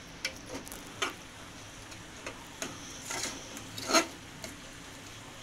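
Steel spoon stirring thick pea-and-paneer gravy in a pressure cooker, scraping and knocking against the pot in scattered strokes, with the loudest clink about four seconds in.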